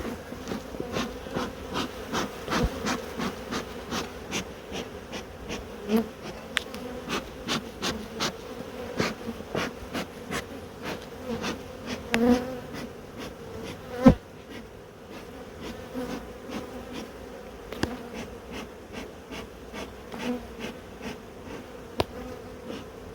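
Agitated honeybees buzzing around an open hive in a steady, droning hum. Many short clicks and knocks sound throughout, the loudest one a little past halfway.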